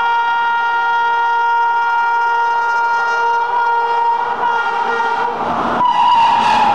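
Locomotive horn held in one long, steady blast as an express train approaches at speed. Its pitch drops as the locomotive passes about six seconds in, and the train's rushing noise rises with it.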